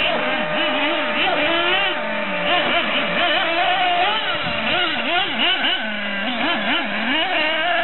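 Several radio-controlled off-road racing cars' motors, their pitches swooping up and down quickly and overlapping as the cars accelerate and brake through the corners, with a steady held tone underneath.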